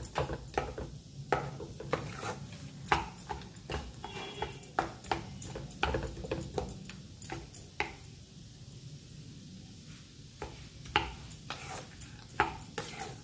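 Wooden spatula stirring and scraping a potato filling around a non-stick kadai, with irregular knocks against the pan. The stirring pauses for about two seconds past the middle, then picks up again.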